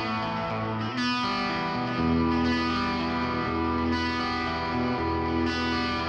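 Background music: a guitar-led royalty-free track with effects, the chords changing about a second in and again two seconds in.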